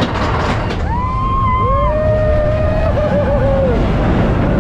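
Expedition Everest roller coaster train running along its track with a steady low rumble. About a second in, riders let out two long, overlapping whooping cries, one of them wavering, and another short cry comes near the end.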